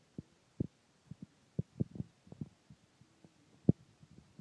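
Irregular soft, low thumps and taps, about a dozen at uneven spacing, with one louder knock near the end.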